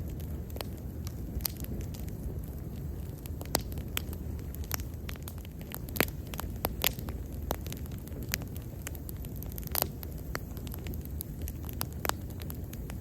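Wood bonfire burning with a steady low rumble and irregular sharp crackles and pops, the loudest pop about halfway through.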